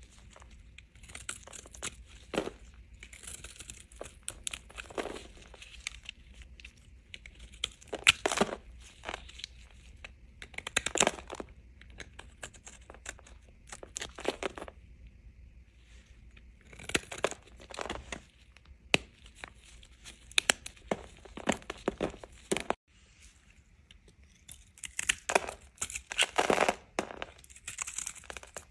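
Knife cutting through bars of dry soap: crisp, crackling cuts that come in short clusters every few seconds, with quiet pauses between.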